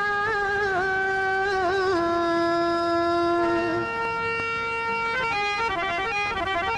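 Pashto film-song music: a long held melody line that bends and wavers in pitch. About five seconds in, it gives way to a quick run of short stepped notes.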